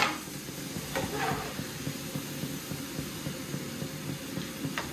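French fries frying in hot peanut oil in a pan, a steady sizzling hiss, with a light click near the end.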